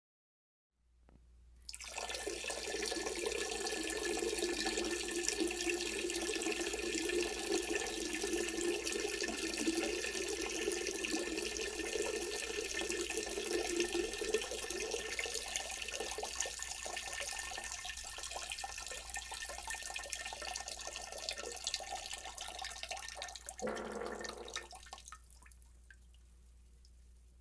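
Water running steadily from a tap for about twenty seconds, then stopping near the end after a brief louder gush.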